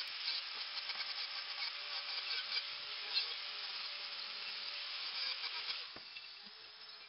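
Angle grinder cutting steel square tubing: a steady high whine over a grinding hiss. About six seconds in it drops quieter and lower in pitch.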